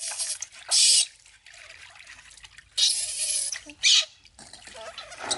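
Water splashing and trickling in a plastic basin as hands scoop and pour water over a baby monkey, in a few short splashy bursts.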